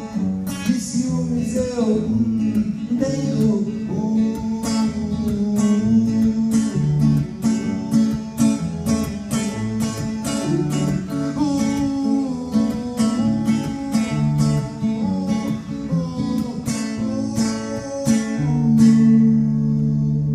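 Acoustic guitar strummed in a steady rhythm while a man sings over it. Near the end he stops strumming and lets a final chord ring.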